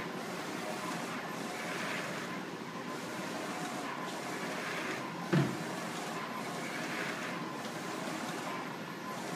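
Direct-to-garment textile printer running: a steady mechanical whir that rises and falls every couple of seconds as the shirt platen and print carriage move, with one short low thump about five seconds in.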